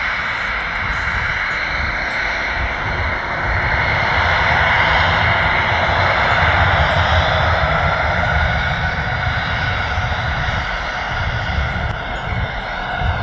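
Boeing 737's twin turbofan engines running at low taxi power as the airliner rolls slowly past: a steady jet rush with a high whine, swelling a little in the middle.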